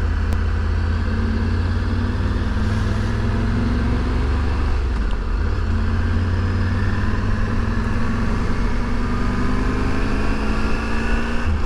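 Motorcycle engine running while riding at low speed, its note climbing slowly with a brief dip about halfway and a sudden drop near the end.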